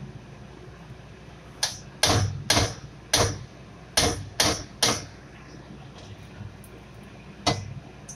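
Metal wok ladle knocking against a stainless steel wok: about eight sharp clanks with a short ring, coming in quick groups in the first half and once more near the end.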